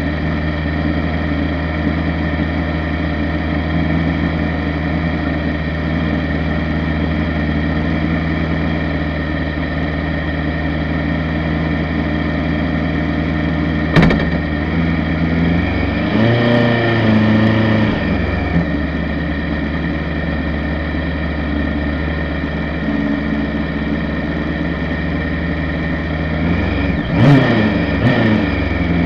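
The 1298 cc engine of a Norma sports-prototype race car idling steadily, heard from on board the car. About halfway through there is a single sharp click, followed by a brief rise and fall of engine pitch, and another short rise in revs comes near the end.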